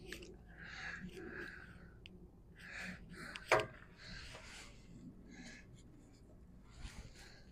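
Hands rubbing and rustling against wiring in an engine bay, with one sharp click about three and a half seconds in.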